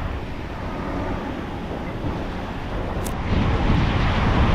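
Surf washing onto the beach, with a brisk wind buffeting the microphone in a low rumble; the wash swells louder about three seconds in.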